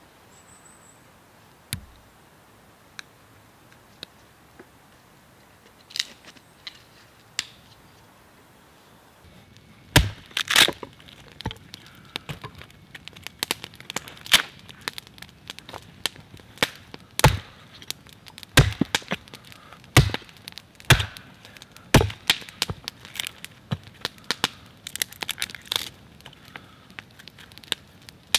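A piece of bark-covered log being broken and torn apart by hand. A few scattered snaps, then from about ten seconds in a dense run of loud, sharp cracks and splintering as the wood and bark give way.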